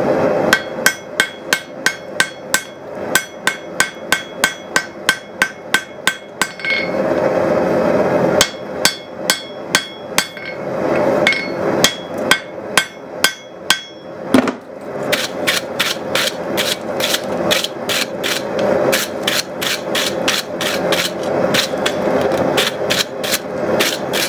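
Hand hammer striking a hot forge-welded Damascus billet on a steel anvil, in three runs of quick blows, about two to three a second, each with a bright ring. The smith is going back over the billet to set the forge welds.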